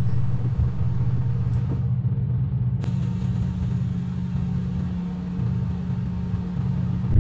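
Ford Super Duty pickup engine idling steadily, run to warm up and circulate its oil after little use over the winter. A single sharp click comes a little under three seconds in.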